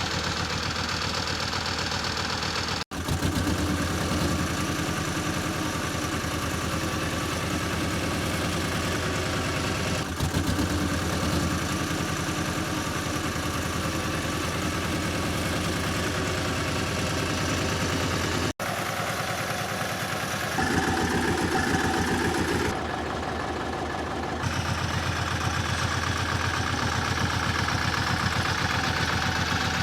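Road roller engine running steadily, cut off abruptly twice for an instant, about three seconds in and a little past halfway.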